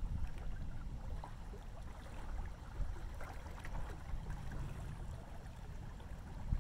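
Thunderstorm ambience by a river at night: a low, steady rumble with faint scattered ticks over it.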